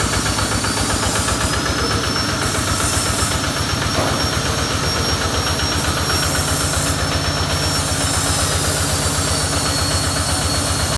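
Engine of the tractor working a potato harvesting machine, running steadily with a rapid, even beat.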